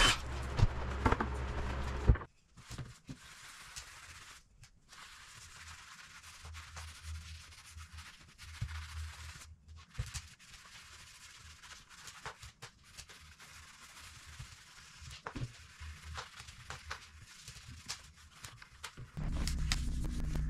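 A cordless drill boring into a wooden door frame runs and cuts off about two seconds in. Then comes faint, scratchy rubbing as a gloved hand and rag wipe black stain over the wood panel. A low steady hum starts near the end.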